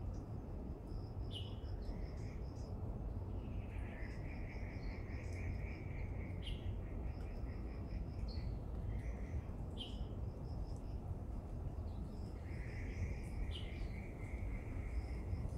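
Small animals calling at a pond: repeated trains of rapid chirping pulses, some high and some lower lasting a few seconds each, with a short falling call four times. A steady low rumble runs underneath.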